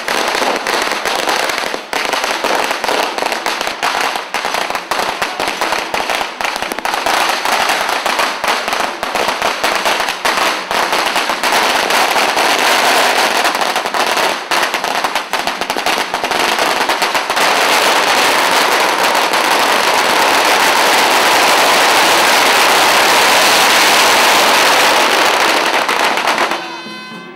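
A long string of firecrackers going off in a rapid crackle of bangs. For the last ten seconds or so the bangs run together into one continuous din, then stop abruptly just before the end.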